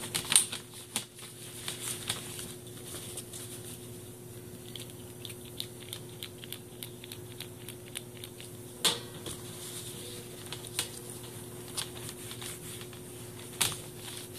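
A microfiber cloth rubbing and wiping across a laptop screen, a soft scratchy rustle with scattered sharp clicks and taps against the laptop, over a faint steady hum.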